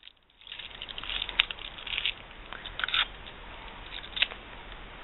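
Fortune cookie being opened by hand: a run of irregular crinkling and crackling from the wrapper and the cookie, with a few sharp snaps as it is broken apart.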